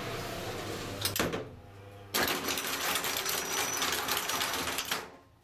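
2012 Motala elevator closing up: a sharp latch click about a second in, then the automatic car doors run shut with a rapid mechanical rattle for about three seconds. The rattle stops suddenly and the surrounding noise drops away as the doors seal.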